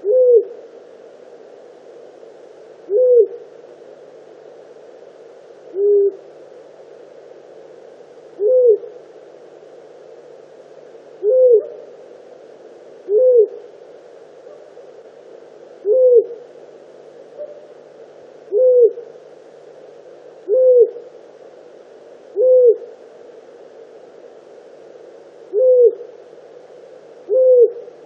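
Long-eared owl, disturbed near its nest, giving short hoots at intervals of about two to three seconds, a dozen in all; each note briefly rises and falls in pitch, and one around six seconds in is a little lower.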